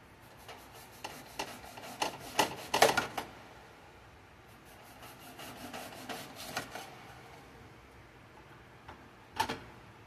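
Kitchen knife clicking and scraping against a plate as an onion is peeled and cut: a run of sharp clicks in the first three seconds, a softer run of scrapes and taps in the middle, and a double click near the end.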